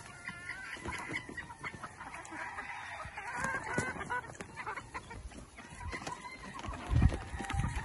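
A flock of gamefowl clucking as they feed, with scattered small pecking clicks; a loud low thump about seven seconds in.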